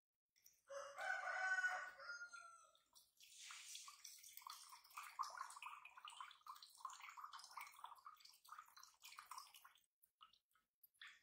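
Coconut water pouring and trickling from a cracked young coconut into a ceramic bowl for several seconds, stopping shortly before the end. Just before the pouring, a short high-pitched call that falls slightly in pitch is the loudest sound.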